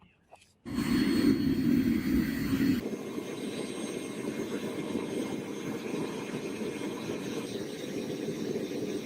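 Steady rushing noise of powered workshop equipment, starting suddenly about a second in. It is louder for the first two seconds, then settles to a slightly lower, even level.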